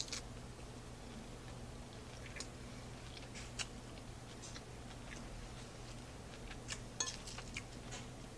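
Quiet chewing of a mouthful of spinach and cucumber salad, with scattered faint crisp crunches and a few light clinks of a metal fork against the plate.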